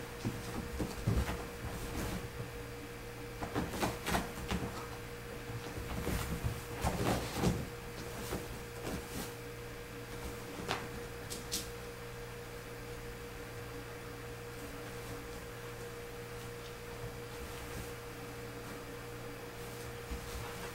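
Two kittens scuffling and pouncing, with soft thumps and rustles of paws and bodies on carpet and a cloth-covered bed. These come in clusters through the first eight seconds and once more around eleven seconds, over a steady low hum.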